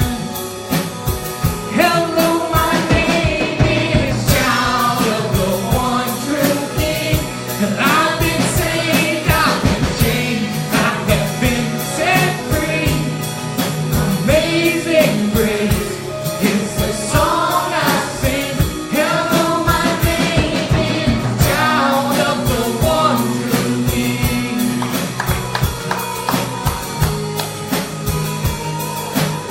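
Gospel-style worship music: a singing voice over a band with drum kit and bass, the drums keeping a steady beat throughout.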